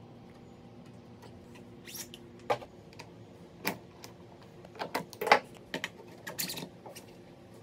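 Irregular sharp knocks and clicks of wooden pieces and hand tools being handled and set down on a workbench, about a dozen in all, the loudest about five and a half seconds in. A faint steady hum stops about two and a half seconds in.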